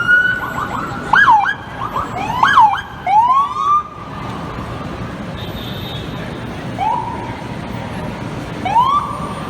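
Emergency vehicle siren on an FDNY fire truck, sweeping rapidly up and down in loud bursts for the first few seconds. It then gives a few shorter, quieter rising whoops that level off, over steady street traffic noise.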